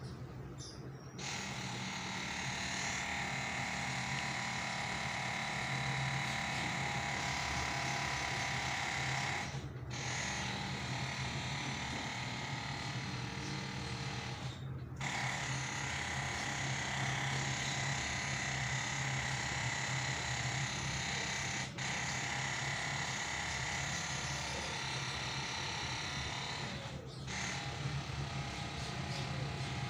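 A small electric motor runs with a steady buzz, breaking off very briefly about four times.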